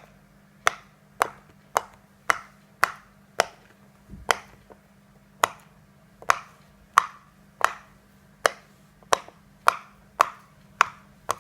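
A silicone pop-it fidget toy making sharp pops, about two a second, with a short pause around four to five seconds in.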